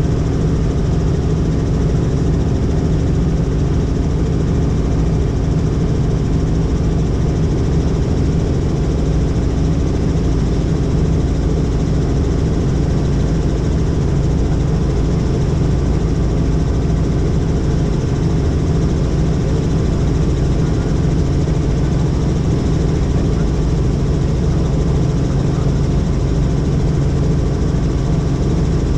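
Helicopter in flight: steady engine and rotor noise with a low hum and a fast, even rotor beat.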